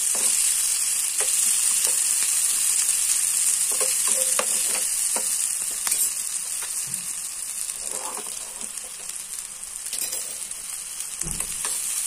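Cubed white brinjal pieces sizzling in hot oil in a pan, a steady hiss with scattered light clicks and taps. The pieces have changed colour and are nearly cooked through. The sizzle drops quieter about seven seconds in and comes back up near the end.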